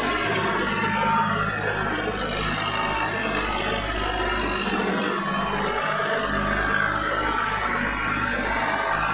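Farm tractor's diesel engine running steadily while the tractor drives along.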